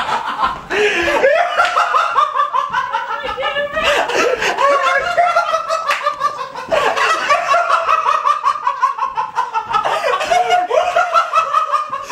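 A person laughing hard in several bouts, each a quick run of high-pitched 'ha' pulses that falls in pitch.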